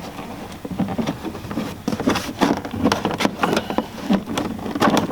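Plastic interior trim panel being pulled free by hand: a rapid, irregular run of sharp clicks and snaps from its push-in clips, with rustling and rattling of the plastic.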